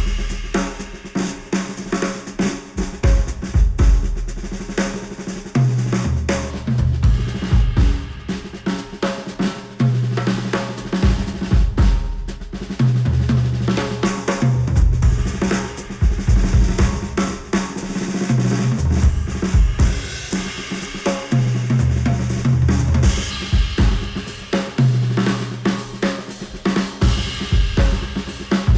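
Instrumental music with a full drum kit (snare, kick, hi-hat and cymbals) over a pulsing bass line, with no vocals. It is heard as played back through headphones and picked up by microphones.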